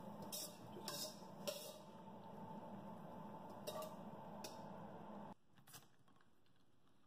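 Faint steady hum with a few light clicks, which drops away suddenly about five seconds in.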